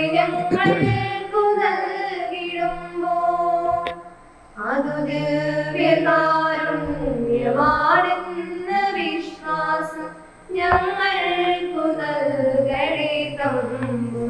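A choir with women's voices sings a Malayalam offertory hymn in long phrases over a low held note, pausing briefly about four and ten seconds in.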